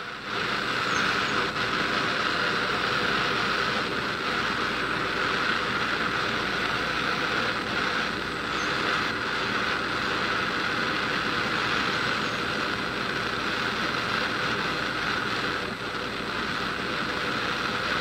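Handheld gas torch burning with a steady hiss, its flame held on silver in a plaster mold to melt it.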